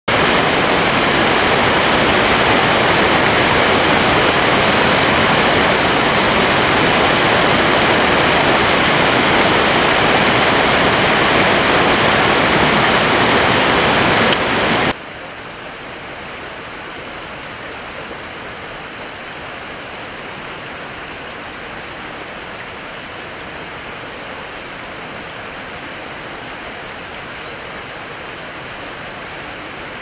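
Steady rushing of flowing stream water, loud for about the first half, then cutting abruptly to a quieter, steady stream sound.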